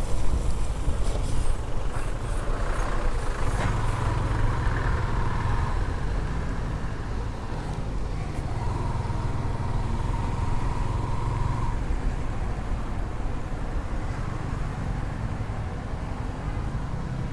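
Yamaha FZS single-cylinder motorcycle engine running steadily as the bike rides on a wet road, with tyre and wind noise, easing off as it rolls up to a toll booth.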